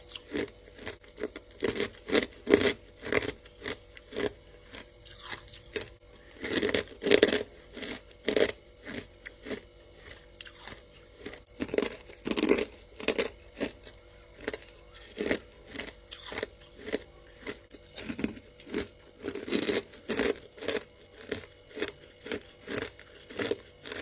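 Close-up biting and chewing of crispy, dry freezer frost: a run of crunches, one to two a second, with louder bursts of crunching about a third of the way in, halfway and near the end. A faint steady hum runs underneath.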